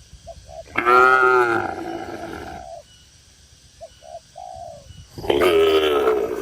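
Cattle mooing: two long, loud moos, one about a second in and another near the end. Short faint bird-like notes sound in the gaps.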